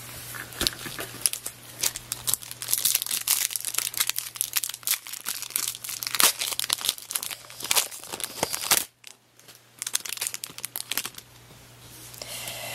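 Foil wrapper of a 2002 Bowman baseball card pack crinkling and tearing as it is ripped open by hand, in a dense run of irregular crackles.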